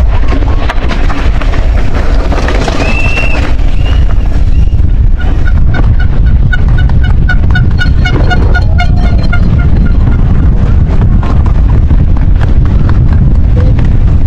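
Strong wind buffeting the microphone, a loud low rumble. From about five seconds in, a run of short high-pitched toots at about three a second lasts several seconds.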